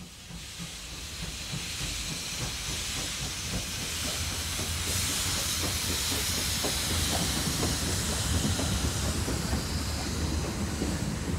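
Steam locomotive pulling away with its cylinder drain cocks open: a steady hiss of steam that builds and is loudest midway, over a low rumble. Later the coaches' wheels click over the rail joints as they roll past.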